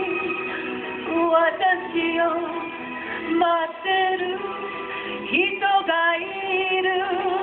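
A woman singing a Japanese song live with musical accompaniment, with a wide vibrato on held notes at the start and again near the end.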